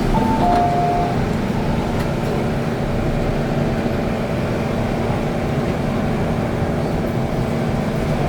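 MTR M-Train electric multiple unit heard from inside the car: a steady running rumble with a constant low hum. At the very start an onboard two-note chime sounds, a high note followed by a lower one.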